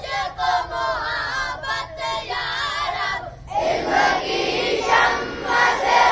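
A boy's voice leading a dua in a melodic, sung recitation, then about three and a half seconds in a group of schoolboys joins in loudly together.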